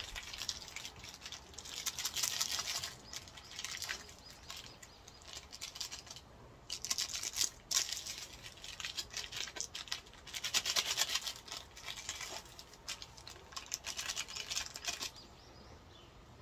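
Ramen seasoning powder being shaken out of foil sachets into a pot: a dry hiss in several bursts with short pauses, quieter near the end.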